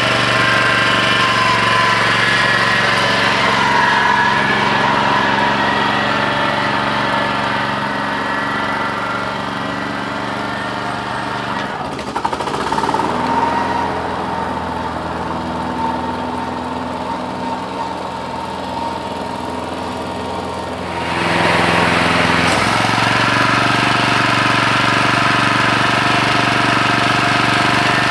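Honda HR 214 lawn mower's single-cylinder four-stroke engine running steadily. It runs quieter through the middle and gets louder again about three-quarters of the way through.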